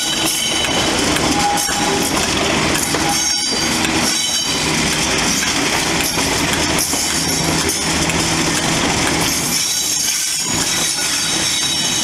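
Class 37 diesel-electric locomotive's English Electric V12 engine working hard as it hauls the train, heard from an open coach window just behind it. A loud steady engine note with a high whistle on top, mixed with the wheels running on the rails.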